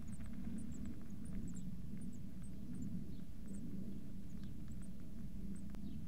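Blue tit nestlings giving short, very high, thin cheeps, several a second, faint over a steady low hum.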